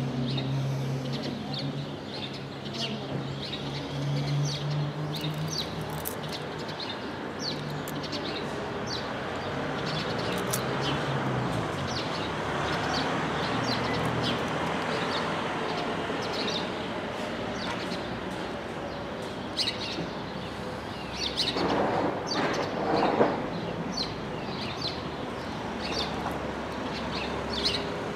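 Small birds chirping repeatedly over outdoor street background noise. A low hum fades out in the first few seconds, and a louder rough noise, like a passing vehicle, rises briefly about three-quarters of the way through.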